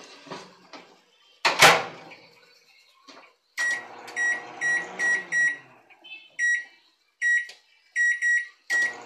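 Microwave oven door shut with a sharp thud, then about ten short beeps from its keypad as the time is set. The oven starts running with a steady hum near the end.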